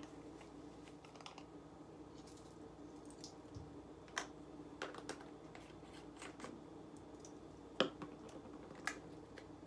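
Scattered light clicks and taps of a measuring spoon against a spice jar and a small container while dried basil is measured out, the loudest about four seconds in and near the end, over a steady low hum.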